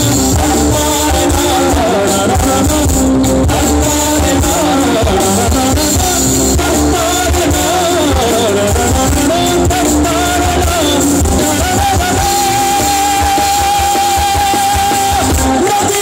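Live rock band playing: a male singer over electric guitar, bass guitar and drum kit. One long note is held steady through the last quarter.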